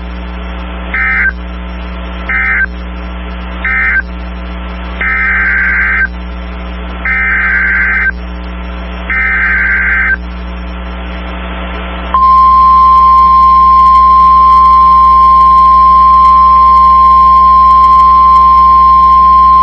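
NOAA Weather Radio emergency alert signals. Three short buzzing SAME data bursts close the end of the previous message, then three longer data bursts form the header of the next warning. About twelve seconds in, the loud, steady 1050 Hz warning alarm tone begins, with a constant electrical hum underneath.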